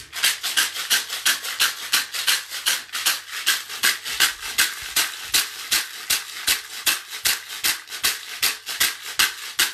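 Hand drum beaten fast and evenly with a padded beater, about four or five beats a second. This is the rapid drumming that calls the listeners back from a shamanic journey.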